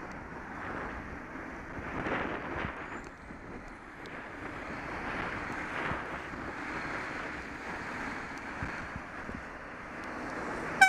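Wind buffeting the microphone of a bike-mounted camera, with tyre spray hissing on a wet road and motor traffic passing alongside. Right at the end a horn starts to sound, one loud steady note.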